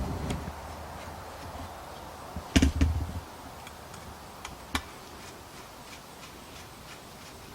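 Knocks and clicks of barbecue parts being handled during disassembly: a short cluster of knocks about two and a half seconds in, then a single sharp click near five seconds, with a few faint ticks between.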